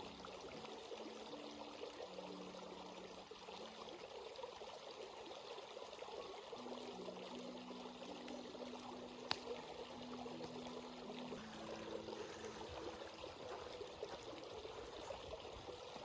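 Stream water flowing and trickling in a steady, even rush, with one sharp click about nine seconds in.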